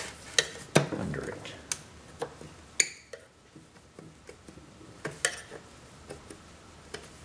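Flat-blade screwdriver prying up the crimped tabs of a Bosch Motronic engine computer's steel cover: sharp metal-on-metal clicks and scrapes, several in the first three seconds and two close together about five seconds in, with faint ticks between.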